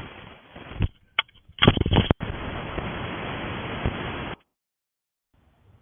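A few sharp knocks or clatters, then about two seconds of steady hiss that cuts off suddenly, heard through the thin, band-limited audio of a doorbell camera.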